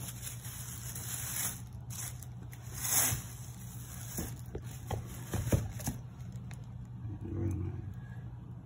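Tissue paper rustling and crinkling in a cardboard shoebox as sneakers are handled and lifted out, with a few short knocks about four to six seconds in.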